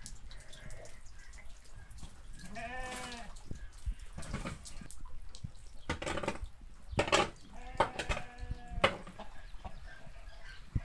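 Sheep or goats bleating several times, each call about a second long, with rain dripping steadily underneath.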